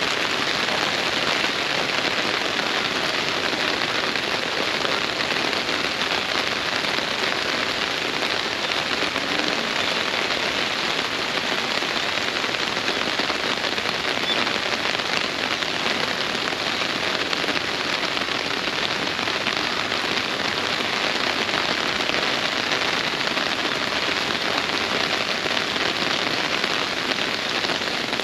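Steady rain falling, a dense even patter that holds at the same level without a break.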